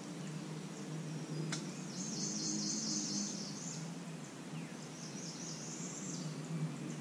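A small bird singing two high, fast phrases of about two seconds each over a steady low hum of background noise, with one sharp click about a second and a half in.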